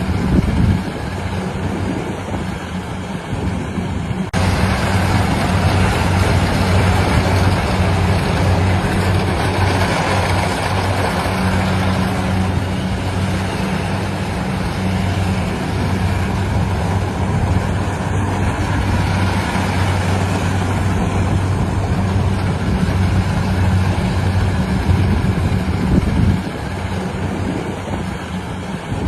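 Engine of a rice-harvesting machine running steadily under load: a constant low hum with noisy mechanical clatter over it. The sound shifts abruptly about four seconds in.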